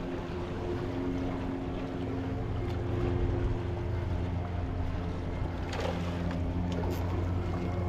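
A steady, low engine drone, like a boat motor on the water, over the wash of water against the rocks. About six seconds in there is a short splash as the hooked fish breaks the surface near the rocks.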